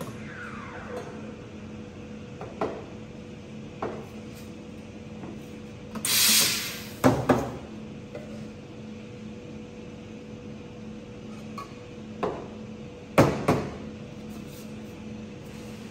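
Espresso machine steam wand giving one loud hiss of about a second, a purge after steaming milk, followed by sharp knocks of a steel milk pitcher tapped on the counter to settle the steamed milk, the loudest in two quick pairs. A steady machine hum runs underneath.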